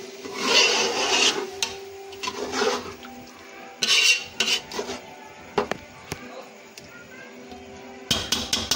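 Metal spoon scraping and stirring through chicken and lentils in a metal cooking pot, with irregular scrapes and clinks against the pot and a quick run of clinks near the end.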